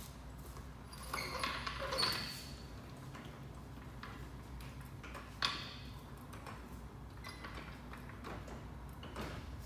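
Metal clinks and knocks from a trolley jack being set under a car's front end: a cluster of clanks about a second in and one sharp click around the middle, over a low steady hum.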